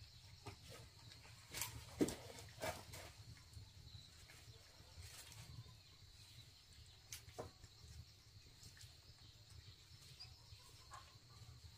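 A few short, soft knocks and taps, clustered about two seconds in and again near the middle, over a faint steady low hum.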